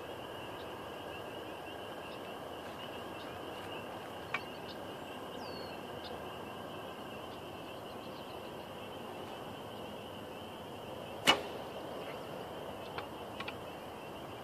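Steady outdoor background hiss with a continuous high-pitched trill running through it, a few light clicks, and one sharp, loud click about eleven seconds in.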